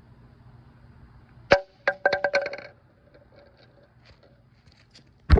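A sharp knock, then a quick run of ringing clinks, as of a hard glass or ceramic object being knocked and handled, with another loud knock near the end.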